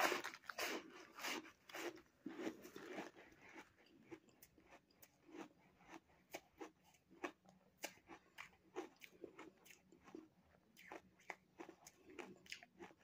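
A person biting into a lump of packed, snow-like ice and chewing it close to the microphone: a run of crisp crunches, densest in the first three seconds, then slower, scattered crunches as the mouthful is chewed down.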